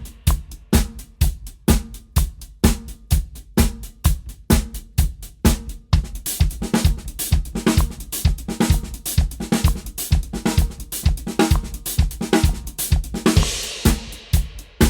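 Drum kit playing a groove built on paradiddles as 16th notes, the sticking spread between snare and hi-hat over a steady bass drum, with cymbal crashes now and then.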